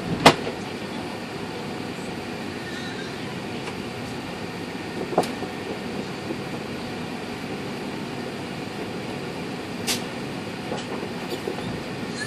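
Steady rumble and hiss of an Airbus A380 airliner cabin, with a few sharp clicks or knocks: a loud one just after the start, others about five and ten seconds in.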